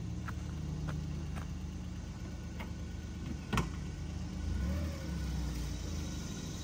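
Kei mini truck's small engine running steadily at low revs. A single sharp click about three and a half seconds in.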